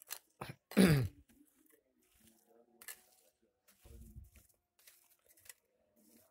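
A person's brief low vocal sound, falling in pitch, about a second in, like a grunt or throat clearing. Faint scattered clicks and scrapes follow as a plastic spoon is worked through moist soil and dry leaf litter, with a quiet low murmur about four seconds in.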